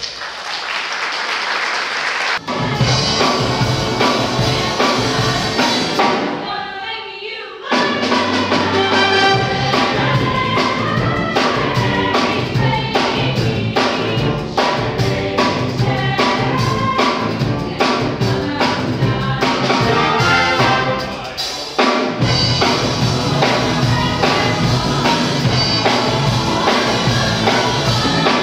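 Jazz big band playing, with saxophones, trumpets, trombones and drum kit, and a vocal group singing with it. The level dips briefly about seven seconds in, then the drums come in with a steady beat.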